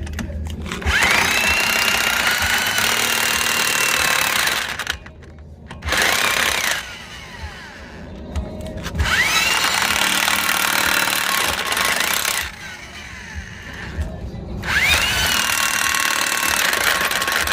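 Impact wrench run in four bursts of a few seconds each, its motor whine rising at each start, tightening a car wheel's lug nuts.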